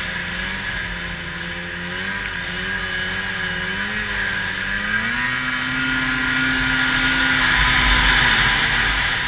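Arctic Cat 700 snowmobile engine running under throttle through deep powder, its pitch wavering at first, then rising about five seconds in and holding before easing off near the end. A rushing noise of wind and snow swells toward the end.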